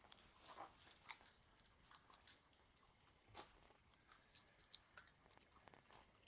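Faint, irregular crunching and clicking of puppies chewing raw chicken pieces with bone and cartilage.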